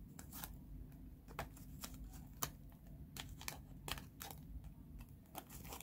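Plastic cards being slid into the card slots of a leather wallet and handled: a string of light, irregular clicks and scrapes, one sharper click about halfway through.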